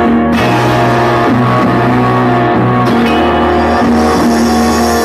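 Loud background music with guitar over a held, shifting bass line.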